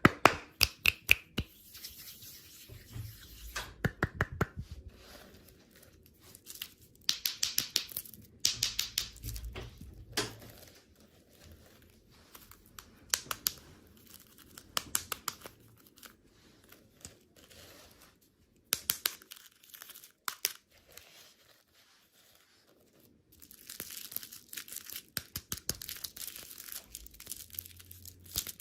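Candy packaging being torn open and crinkled by hand, in bursts of sharp crackling with short pauses between them.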